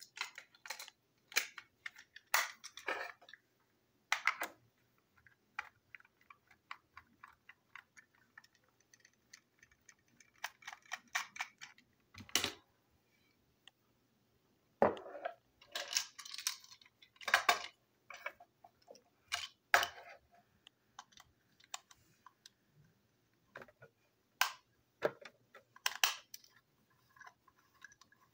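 Irregular plastic clicks, taps and knocks of a toy train's body shell and wheeled chassis being handled and set down on a desk, with a few louder knocks scattered through.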